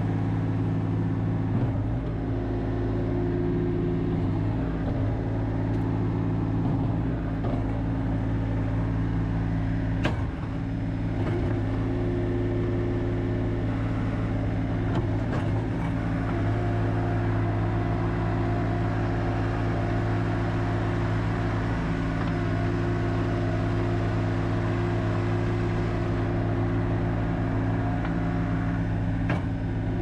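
2016 Bobcat S450 skid steer loader's 49 hp Tier 4 diesel engine running steadily at working speed as the machine drives and works its bucket, with a brief knock about ten seconds in and another near the end.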